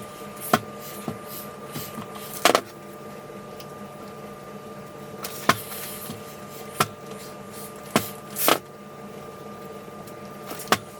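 Fabric being pressed with a clothes iron on an ironing board: scattered knocks and a few short bursts of noise from the iron, over a steady hum.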